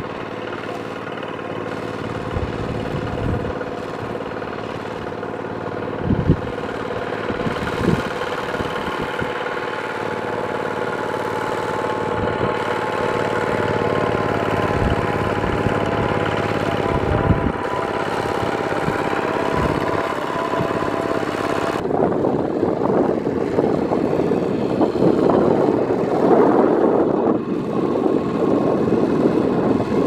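Kubota walking tractor's single-cylinder diesel engine running steadily as its cage wheels churn through a flooded rice paddy, with a few short knocks. About two-thirds of the way through the sound changes abruptly to a louder, rougher engine noise.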